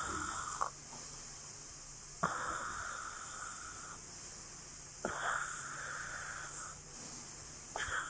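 Breathing through a CPAP nasal mask, with the machine delivering weak airflow: a hiss of air rushes through the mask with each breath, about every three seconds.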